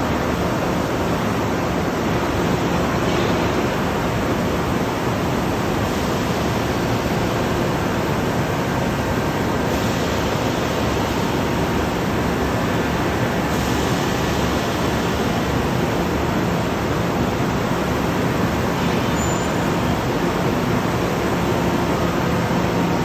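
Steady industrial noise from a steel billet induction heating line running: an even roar with a faint, steady hum under it.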